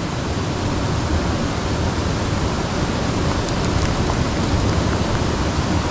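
Steady rush of running water from the irrigation ditch, an even, unbroken noise with a few faint ticks in the middle.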